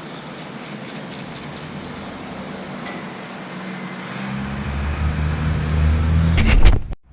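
A few sharp clicks over a steady hiss, then a low vehicle engine rumble that swells for about two seconds and cuts off abruptly near the end.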